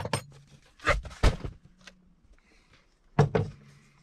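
Knocks and clatter of a belt 3D printer's aluminium-extrusion frame being handled and set down on a wooden workbench: a couple of knocks about a second in and a louder clatter near the end, over a faint steady hum.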